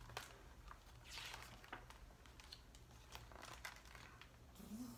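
Faint rustling and soft clicks of a picture book's paper page being turned and the book handled, over a low steady room hum.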